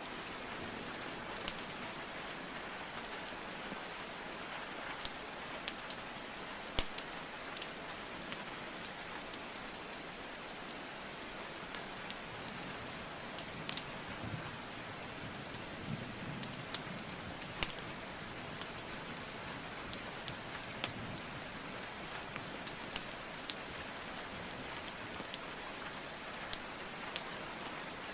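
Steady rain hiss, with sharp, irregular pops and crackles of burning wood logs in a fireplace scattered through it; one pop about seven seconds in is the loudest.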